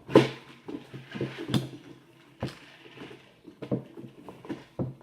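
Small objects and packaging being handled and rummaged through: an irregular series of short clicks, taps and rustles, over a faint steady hum.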